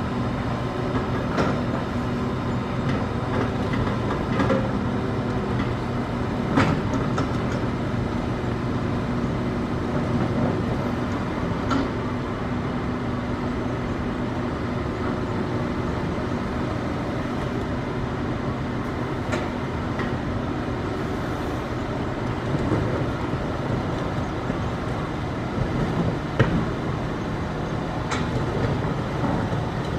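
A Hitachi excavator's diesel engine runs steadily under load while it digs hard rock. Sharp knocks of rock striking the steel bucket come every five seconds or so.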